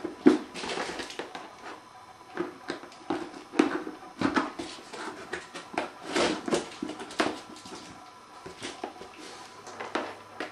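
Irregular rustling, scraping and light knocks from a wire being threaded through holes in a plastic box lined with reflective insulation, and from the box being handled. A sharp knock comes just after the start, and a denser cluster of handling noise comes about six seconds in.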